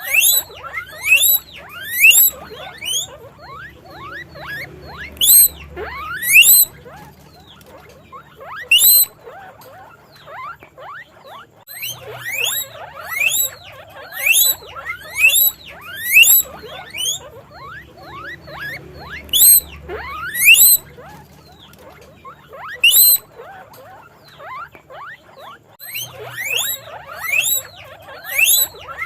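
Guinea pig squeaking (wheeking): many short, high squeals that each rise sharply in pitch, coming in quick runs with quieter gaps between them.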